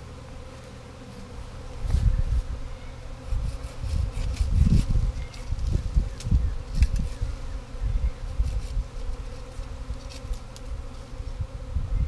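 A swarm of honey bees buzzing around a hive box with a steady hum. From about two seconds in, an irregular low rumbling with a few faint clicks is louder than the hum.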